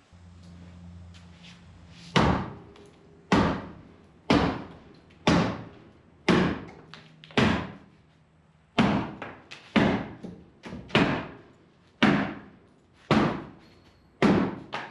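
Heavy hammer-like blows striking a wooden wall shelf, about a dozen sharp knocks roughly a second apart, each ringing briefly, as the shelf is knocked loose from the wall.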